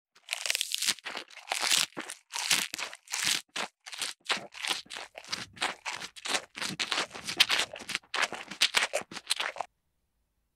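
A quick, uneven run of short scratchy noises, several a second, that cuts off abruptly near the end.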